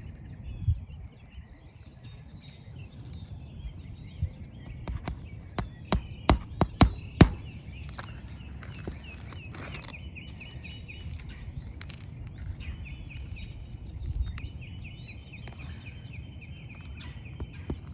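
Hammer driving roofing nails into an asphalt shingle: a quick run of about six sharp strikes a third of the way in, with a few lighter taps around them, over steady outdoor background with birds chirping.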